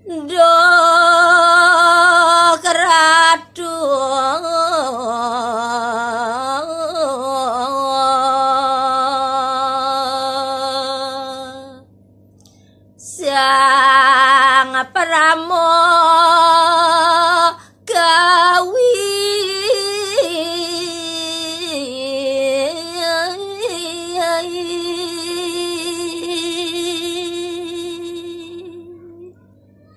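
A woman singing Balinese gaguritan verse unaccompanied, in long, slow, wavering melismatic phrases. Two phrases, with a short break about twelve seconds in.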